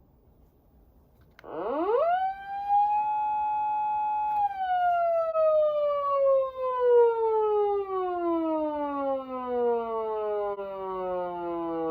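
Patlite SAP500BK-PV electronic siren amplifier sounding its siren tone. After a moment of near silence, the tone rises sharply to a high pitch in under a second, the quick rise the amp is known for. It holds steady for about two seconds, then slowly winds down in pitch.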